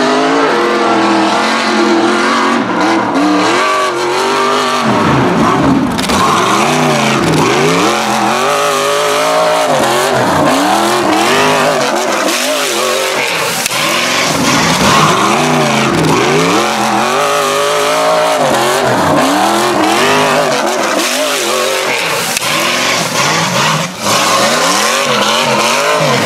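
A rock bouncer's LS V8 revving hard again and again as it claws up a dirt hill climb, its pitch surging up and falling back every second or two. Tyres spinning in loose dirt add a steady rush.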